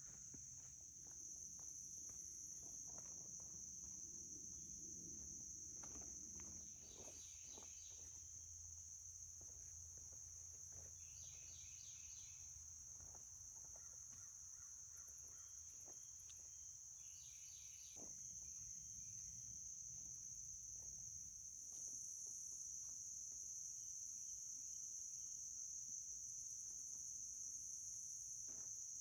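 Insects trilling in a steady, high-pitched chorus, with a bird chirping in short bursts every few seconds and a few faint clicks and rustles.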